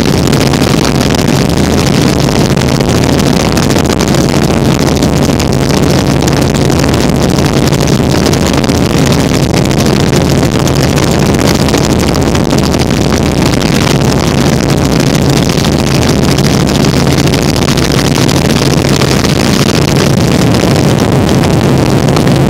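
Helicopter in flight heard from inside the cabin: steady, loud rotor and engine noise with a constant low hum and rushing air.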